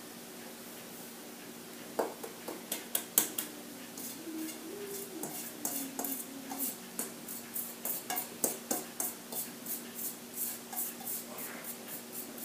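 Metal mixing bowl held tilted over another bowl and knocked by hand to shake the last of the flour out: a few sharper knocks, then a steady run of light taps, about three a second, in the second half.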